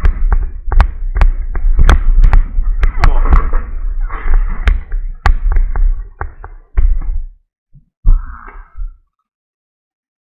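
Close handling noise of a folded PVC inflatable kayak being moved and unfolded: rustling vinyl and many sharp knocks and clicks over a heavy low rumble from the camera being jostled. It thins out after about six seconds, with one last rustle, then cuts to silence.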